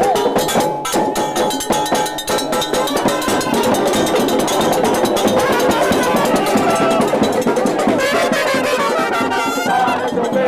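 Cuban carnival comparsa band playing a fast street conga: hand-beaten drums and cowbell, with brass joining in clearly near the end.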